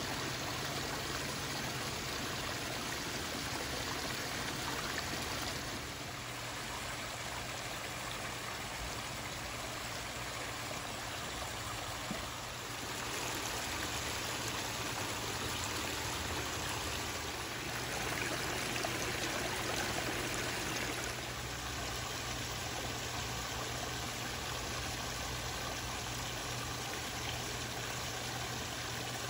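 Water from a small rock waterfall splashing and trickling steadily into a garden koi pond.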